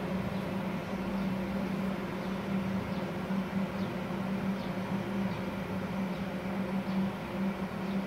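Steady hum of a Multipro TIG 400D G-TY inverter welder and its WC 10L-SD water cooler switched on and idling, their cooling fans running, with an even low tone over a fan-like hiss.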